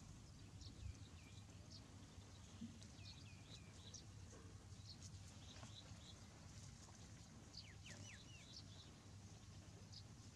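Faint outdoor birds chirping: short, high, falling chirps, scattered and now and then in quick runs of two or three, over a low steady hum.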